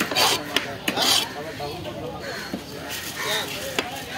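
Heavy knife scraping and knocking on a wooden log chopping block while a trevally head is worked: several rasping strokes in the first second and a half, then scattered sharp knocks.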